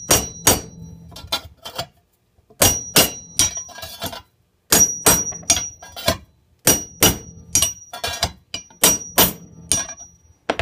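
Hammer blows on the steel plunger of an Oregon bar rail closer set over a chainsaw bar, in short runs of several strikes about every two seconds, each run with a high metallic ring. The tool is pinching the spread rails of the bar's groove closed and even as it is worked down the bar.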